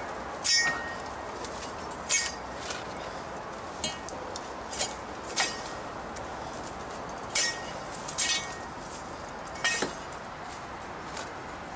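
About a dozen sharp, ringing clinks and knocks at uneven intervals over a steady hiss.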